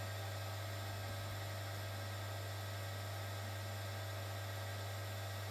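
Steady low electrical hum with a faint hiss behind it.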